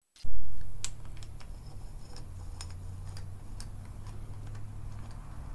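Light, irregular metal clicks of a socket and extension bar being handled and fitted together, over a steady low hum, with a louder low rumble in the first second.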